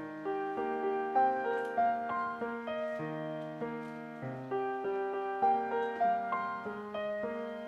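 Background music: a piano playing a gentle melody over chords.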